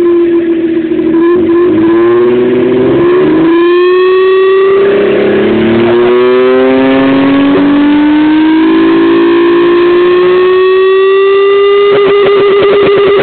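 Tuned Mitsubishi FTO's MIVEC V6 revved hard through a large-bore aftermarket exhaust, the revs climbing slowly and steadily as the note changes character partway up, then held high near the end.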